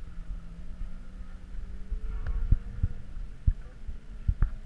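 Irregular low thumps over a faint steady hum that sinks slightly in pitch: wind buffeting the microphone of an action camera mounted on the track's catch fence.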